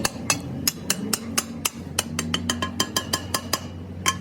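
Quick, uneven metallic taps and clinks, about four to six a second, each with a short ring, over a steady low hum.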